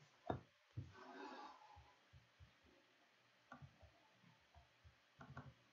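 Near silence: quiet room tone with a few faint, short clicks and taps.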